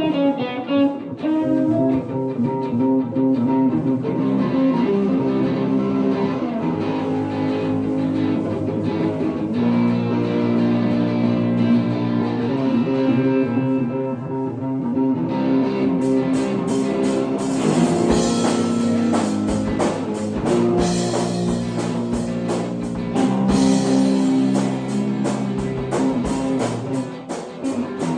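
Live band jamming: guitar playing a repeating line, with drums and cymbals coming in about halfway through.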